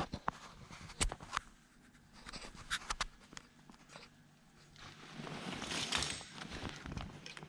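Handling noises from a vacuum cleaner and its paper dust bag: scattered sharp clicks and knocks, then about two seconds of rustling late on.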